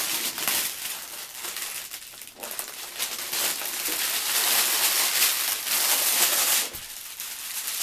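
Packaging crinkling and rustling as it is unwrapped by hand, in irregular handling noises that grow busiest over a long stretch from about three seconds in, then stop abruptly near the end.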